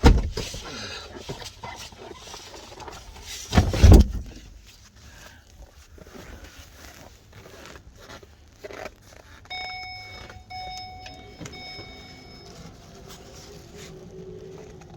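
Two loud bumps in the first four seconds, then a car's electronic chime sounding three times, each tone about a second long, followed by a low steady hum.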